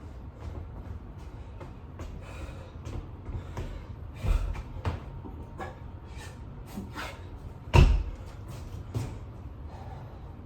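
Thuds and knocks of a burpee with push-ups: hands and feet landing and shuffling on the floor, with a heavy thud about four seconds in and the loudest one near eight seconds.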